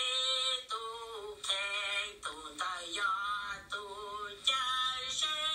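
A high voice singing a melody in short held notes that waver slightly and change pitch about every half second.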